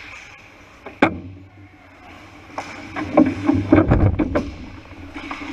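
Ice hockey play in a rink: a sharp crack about a second in, then a cluster of knocks and heavy thuds around three to four seconds in, over a steady low hum.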